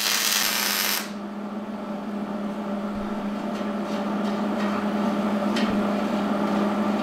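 Wire-feed (MIG) welder arc crackling and hissing as a bead is laid on a steel battery-rack frame; it cuts off about a second in. A steady hum follows, with a few light metallic ticks as a hand tool picks at the welded joint.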